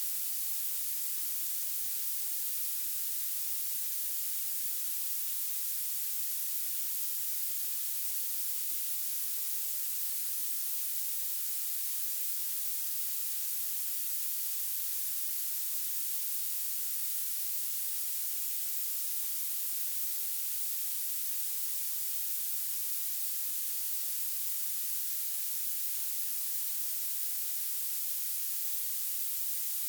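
Steady violet noise: synthetic hiss weighted toward the highest pitches, with almost no low end.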